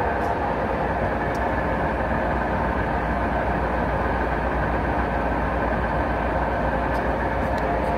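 Steady hum and whir of a large TOS SUS 63 engine lathe running at constant speed.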